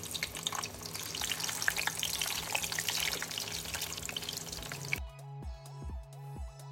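Momos sizzling and crackling as they fry in hot oil in a wok. About five seconds in it cuts off abruptly to electronic background music with a steady beat.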